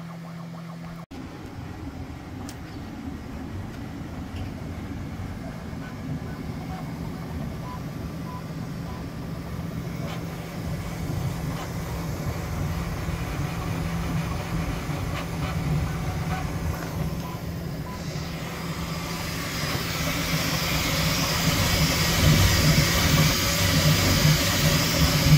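Steady mechanical running noise over a low hum, growing slowly louder, with a hiss rising over the last several seconds.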